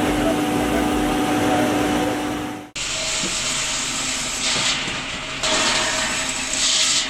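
Wood-processing machinery running with a steady hum. About two and a half seconds in, the sound cuts off abruptly and a different machine takes over, running with a steady hiss.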